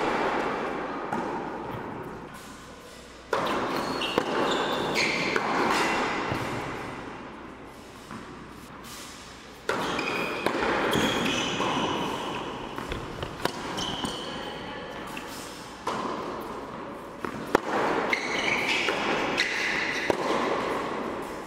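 Tennis rally on an indoor hard court: racket strikes and ball bounces echoing in a large hall, with short squeaks of tennis shoes on the court.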